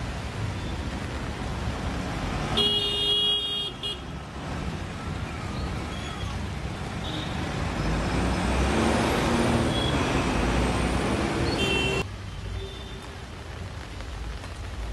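Road traffic in heavy rain: cars driving through standing water over a steady hiss of rain. A car horn sounds for about a second, a few seconds in, and a louder vehicle passes near the middle. After an abrupt change near the end, mostly steady rain remains.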